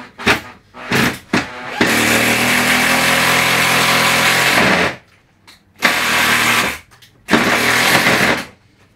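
Power tool motor running in bursts: a few short blips, then a run of about three seconds, then two shorter runs of about a second each.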